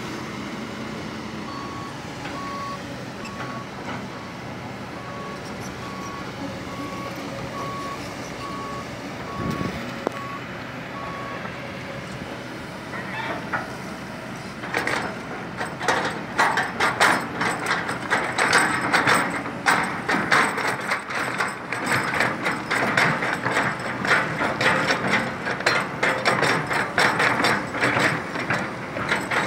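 Kobelco SK200-10 hydraulic excavator's diesel engine running steadily, with its travel alarm beeping a little more than once a second. About halfway through, a loud, dense metallic clatter of the working excavators takes over and keeps going.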